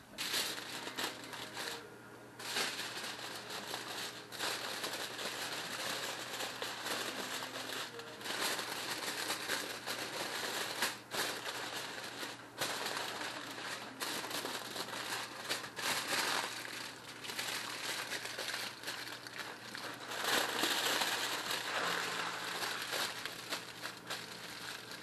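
Aluminium foil crinkling and crackling as it is folded and pressed by hand around a packet of stuffing. The crackle goes on almost without a break, with a few short pauses.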